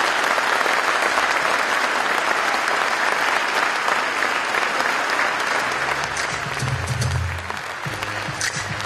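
Audience applauding steadily. About six seconds in, music starts underneath with low sustained notes as the applause thins.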